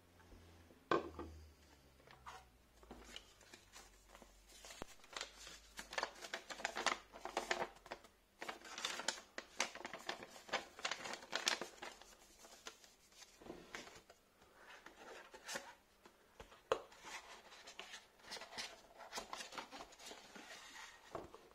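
A folded paper instruction leaflet rustling and crinkling as it is unfolded and handled, then a cardboard box being handled, with scattered light clicks and taps. About a second in there is one sharper click.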